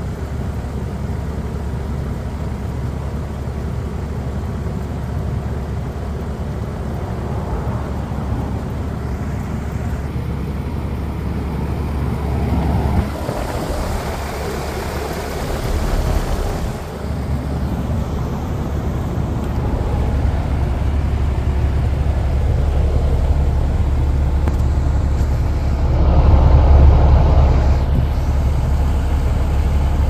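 A 1994 Ruud UPND 3-ton packaged heat pump running in heat mode, its compressor and outdoor fan making a steady low hum with a rush of air. The rush swells louder about halfway through and again near the end.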